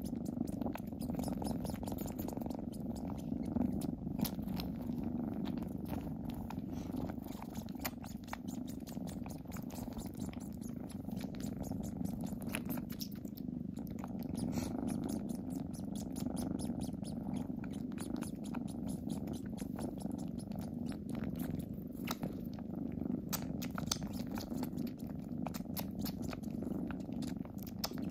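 Kitten purring steadily and continuously, with a scatter of fine clicks on top.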